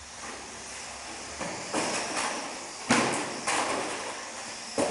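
Radio-controlled banger cars crashing into each other and the wooden track boards: several sharp knocks and bangs, the loudest about three seconds in, each ringing briefly in a large hall.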